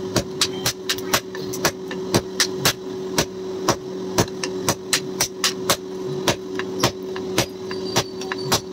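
Hand hammer blows on a red-hot steel knife blank against an anvil, striking fast and irregularly at about three a second. A steady hum runs underneath.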